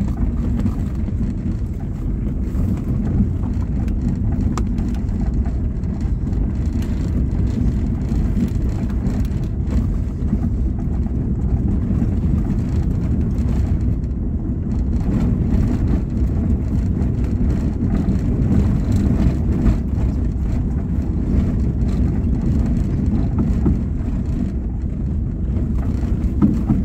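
Car driving over a rough dirt track, heard from inside the cabin: a steady low rumble of engine and tyres, with a few light knocks.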